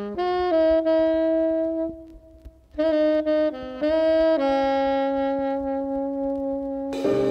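Background jazz music: a lone saxophone plays slow phrases of long held notes, with a short pause midway, and the rest of the band comes in near the end.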